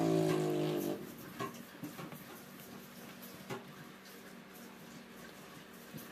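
A motor vehicle's engine hum that stops about a second in, followed by a few faint, scattered clicks of laptop keys as text is typed.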